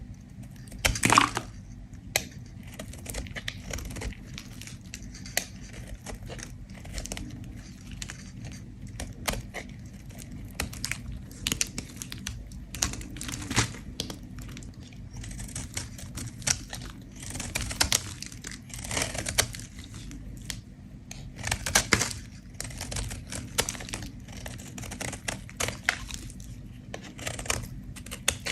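A bar of soap being scraped: a long run of irregular, crisp, crumbly scraping strokes, some louder than others, with no speech.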